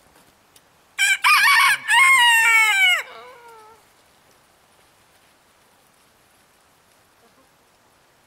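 A rooster crowing once, a call about two seconds long that starts about a second in and ends on a falling note.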